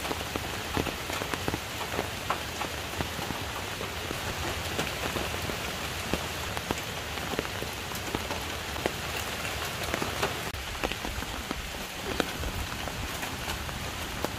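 Steady rain falling, with many small drops ticking on nearby surfaces.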